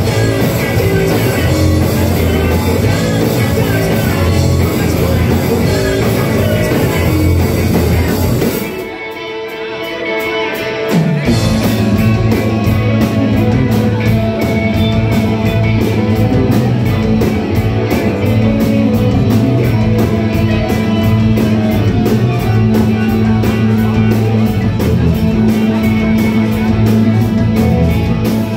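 Live rock band playing, with electric guitars, bass, drums and singing, heard from within the audience. About nine seconds in, the bass and drums drop out for a couple of seconds, then the full band comes back in.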